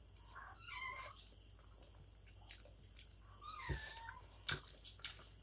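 A cat meowing twice, short high wavering cries about half a second in and again near four seconds in, with a few sharp clicks of someone eating by hand in between.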